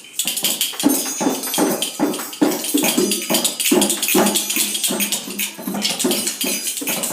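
A group playing hand percussion instruments: quick, uneven strikes several times a second, with a jingling shimmer over them.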